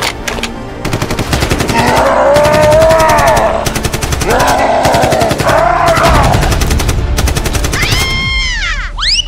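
Machine-gun sound effect: rapid, evenly spaced shots firing for several seconds. Over the shots come two long rising-and-falling cries, and near the end a falling whistle-like glide.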